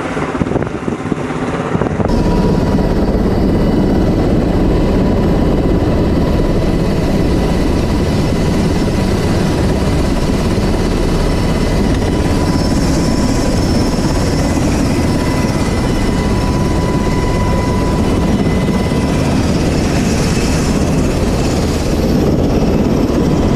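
UH-60 Black Hawk helicopter running, heard from its open cabin door beside the door gun: a loud, steady rotor and turbine noise with a thin high whine over it. About two seconds in the sound steps up as the whine comes in.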